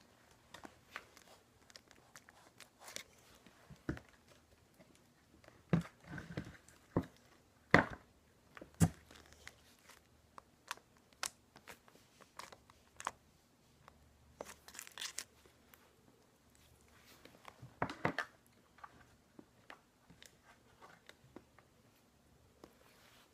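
Slime and its plastic packaging being handled, giving scattered sharp crackles, clicks and crinkling. The loudest cracks come in a cluster a few seconds in and again later.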